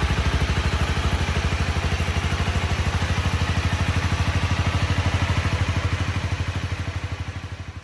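Honda CB250R's single-cylinder four-stroke engine idling steadily through its stock exhaust, a low, even beat. It fades away near the end.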